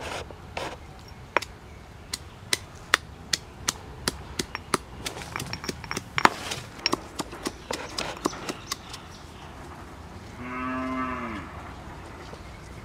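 Pestle pounding in a small stone mortar, sharp knocks about two to three a second that stop a few seconds before the end. Then a cow moos once, about a second long, its pitch dropping at the end.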